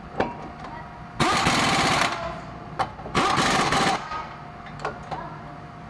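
Power tool running in two short bursts of rapid hammering rattle, each just under a second long, with a few sharp clicks in between.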